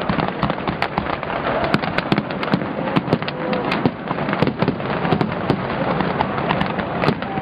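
Large fireworks display: a dense, continuous stream of bangs and crackling, many sharp reports a second with no let-up.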